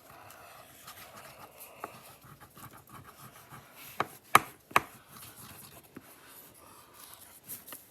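Faint scratching and rustling of a marker colouring on paper, with three sharp taps or clicks a little past halfway.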